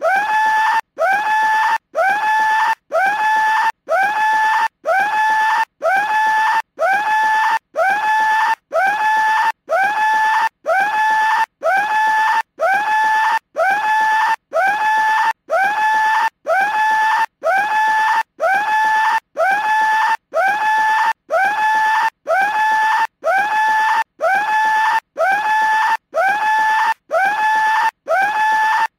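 A skull-shaped cartoon telephone ringing with a scream instead of a bell: the same short scream repeats about once a second, each one sliding up at the start and then holding a steady pitch, with a brief gap between.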